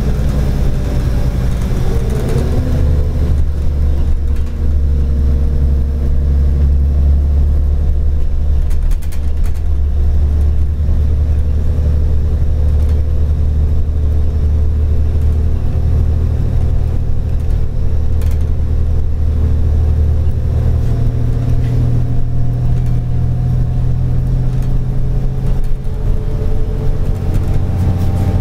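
Inside a moving New Flyer D40LF diesel city bus: a steady, loud low rumble from the engine and drivetrain, with a whine whose pitch sinks over the first few seconds, holds, and climbs slowly again near the end as the bus changes speed.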